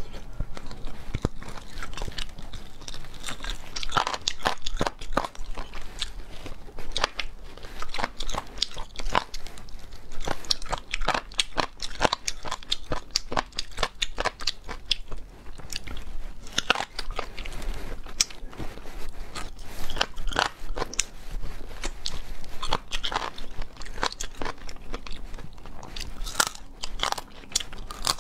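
Crunching and chewing of seasoned chicken bones, the gristly cartilage on them bitten through in many sharp, irregular crunches.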